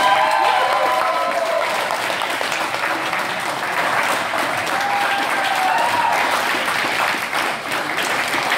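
A group of about twenty people clapping steadily in applause, with a few voices calling out over it.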